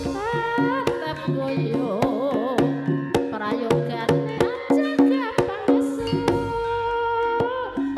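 Live campursari music: drum strokes, typical of a Javanese kendang, keep a brisk beat under a sliding, ornamented melody line and steady held low notes.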